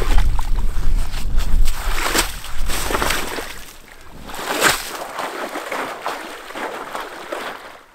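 Boots sloshing through wet slush and shallow meltwater on a thawing lake, a few separate splashy steps.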